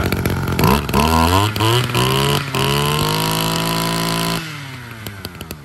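Kioritz two-stroke brushcutter engine being revved by hand: its pitch climbs, blips a few times, holds at high revs, then falls away suddenly about four and a half seconds in. The seller takes the strong, steady running as the sign of a healthy engine with nothing to fault.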